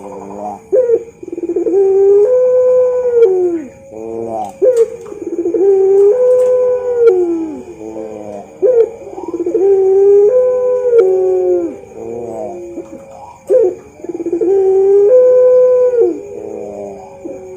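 Puter pelung turtle dove cooing loudly: long drawn-out coos, each a held note that dips and falls away at the end, repeated about every four seconds with shorter notes between.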